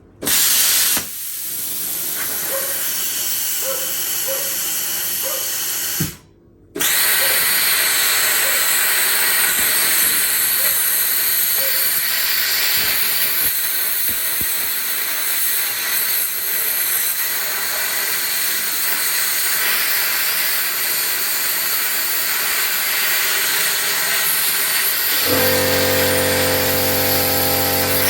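Plasma cutter at 40 amps cutting 20 mm steel plate: a loud, steady hiss of air and arc that cuts out briefly about six seconds in and starts again. A low hum joins near the end.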